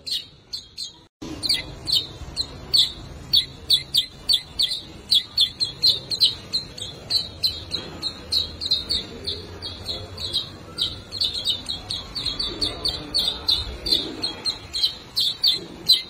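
Warbling white-eye giving a fast, steady run of short, high chirps, several a second, broken by a brief dropout about a second in.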